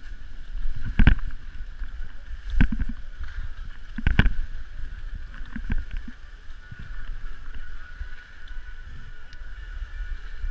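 Skis sliding and scraping over packed snow, with several sharp clacks about a second, two and a half, four and five and a half seconds in, over a steady low rumble of wind on the microphone.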